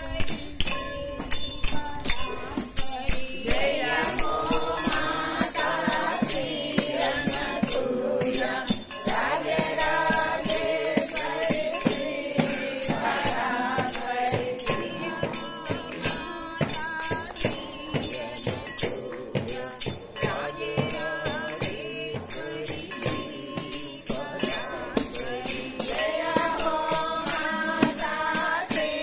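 A group of devotees singing a Telugu devotional chant (sankeerthana) together in phrases of a few seconds, over a steady, quick percussive beat.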